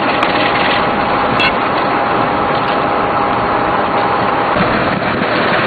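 Steady loud mechanical noise, like an engine running, with a thin steady whine that stops about four and a half seconds in.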